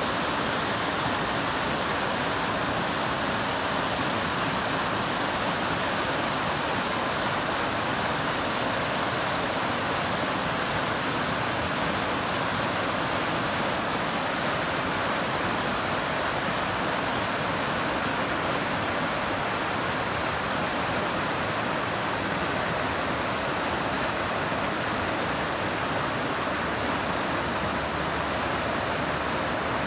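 South Fork of the Snoqualmie River running high after heavy flooding rains, rushing through whitewater rapids over boulders: a steady, even rush of water.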